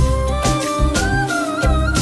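Music from a slow Hindi song: a melodic line over bass and drum beats.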